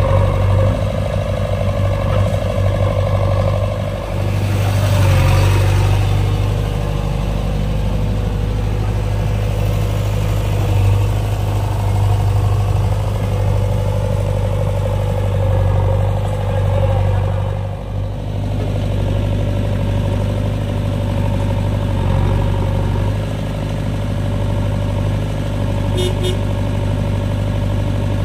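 Diesel engines of a JCB 3DX backhoe loader and a tractor running steadily with a deep drone. A brief rush of noise comes about five seconds in.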